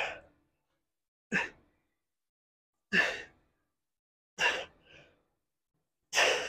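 A man's sharp, forceful exhales, five of them in a steady rhythm about a second and a half apart.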